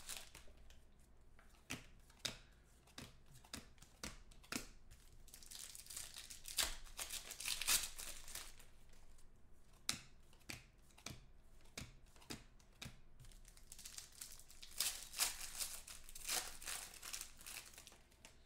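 Foil trading-card pack wrappers being torn open and crinkled in the hands, with cards being handled: a run of sharp crackles and clicks, with two longer bursts of crinkling about a third of the way in and again near the end.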